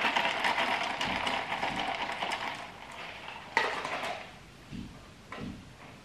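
Close-up eating and food-handling noises at a table. A run of crackling clicks lasts about two and a half seconds, then a sharper clatter comes about three and a half seconds in, followed by a few softer knocks.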